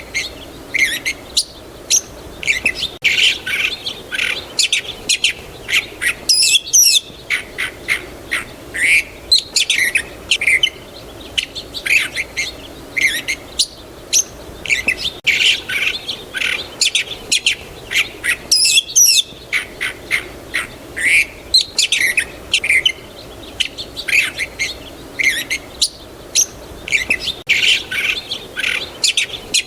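A chorus of songbirds chirping and twittering in rapid, overlapping short calls, with some harsher squawks among them. The same stretch of birdsong repeats about every twelve seconds, as a looped recording does.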